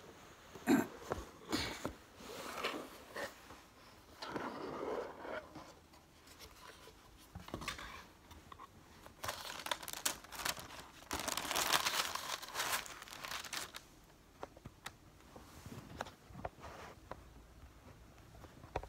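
Handling of a cardboard gift box and the white wrapping paper inside it: scattered clicks and rustles, then a longer, louder stretch of paper crinkling from about nine to thirteen seconds in.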